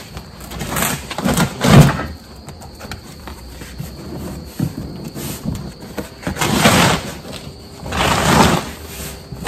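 A large cardboard shipping box being cut open and its flaps pulled apart. Rough scraping and tearing of cardboard comes in three loud rushes, the loudest about two seconds in and the other two near the end.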